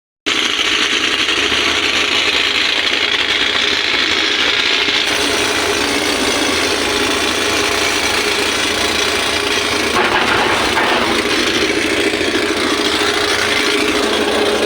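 Excavator at work: a loud, steady mechanical clatter and rattle, briefly louder about ten seconds in.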